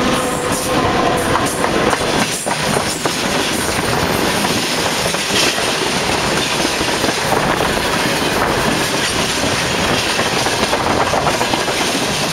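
Freight wagons of a train rolling directly overhead, heard from between the rails: a loud, steady rumble of steel wheels on the rails, with occasional sharp clacks.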